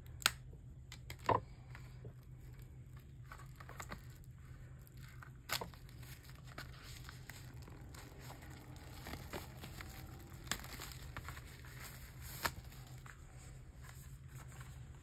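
Handling of album packaging and photo cards: soft paper and plastic rustling with a handful of sharp light taps, over a low steady hum.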